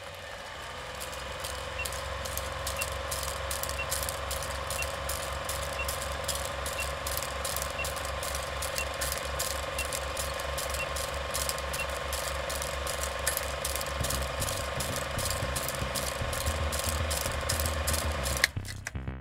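Film projector running: a fast, even mechanical clatter over a steady hiss and hum, which cuts off suddenly near the end.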